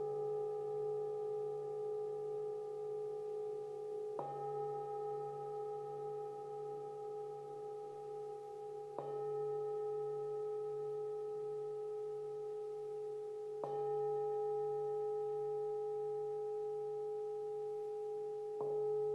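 Hammered metal singing bowls struck with a wooden mallet four times, about every five seconds, each strike sounding the same low note and higher overtones that ring on with a slow pulsing into the next strike.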